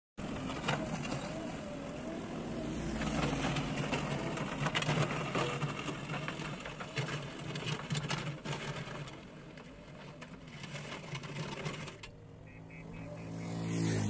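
JCB backhoe loader's diesel engine running while its bucket scrapes and drags rocky soil, with stones clattering and grinding. About twelve seconds in the scraping stops, leaving a steadier engine hum.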